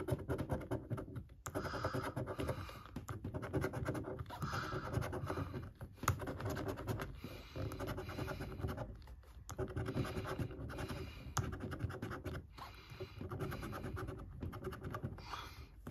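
A coin scratching the coating off a paper scratchcard in quick back-and-forth strokes, stopping briefly every few seconds.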